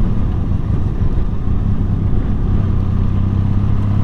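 Benelli TRK adventure motorcycle's engine running at a steady pace while riding, with wind rushing over the microphone.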